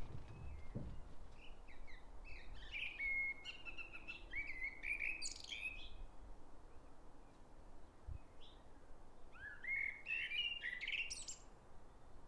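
Common blackbird singing two song phrases, each a run of warbled notes ending in a higher, squeaky twitter. The second phrase comes about nine and a half seconds in.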